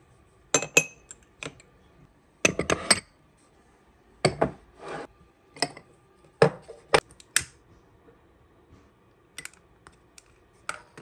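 Irregular light clicks and knocks of small hard objects being handled and set down, some coming in quick clusters of two or three.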